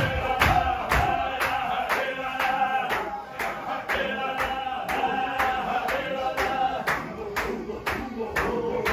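A group of men chanting a Sufi zikr in unison, with a steady beat of about two strokes a second from the circling men.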